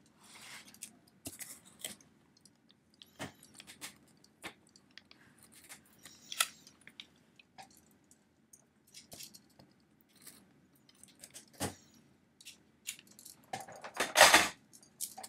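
A blade slitting the packing tape on a cardboard box: scattered small clicks and scrapes of cardboard, with a louder scrape near the end.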